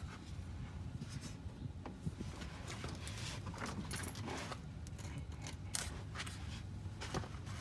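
Metal hand tools clinking and scraping: sockets and a ratchet being handled while changing a starter, in irregular light clicks over a low steady hum.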